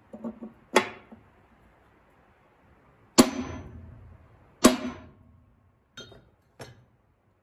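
Hammer striking a center punch on quarter-inch steel plate, marking hole positions for drilling: three sharp blows, each ringing on briefly, the last two about a second and a half apart, then two lighter taps near the end.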